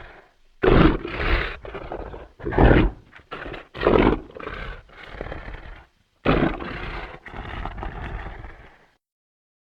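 Dinosaur roar sound effects: a run of loud animal roars with short gaps between them, the last and longest starting about six seconds in and ending about a second before the end.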